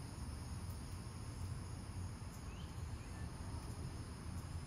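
Quiet outdoor ambience: a steady high-pitched insect drone over a low background rumble, with one faint short rising chirp a little past halfway.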